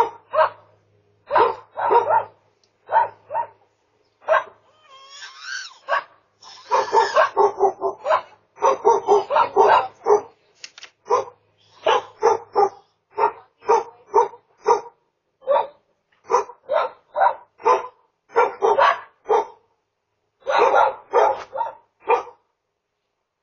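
Dog barking over and over, loud sharp barks in quick runs, with a short higher, wavering cry about five seconds in.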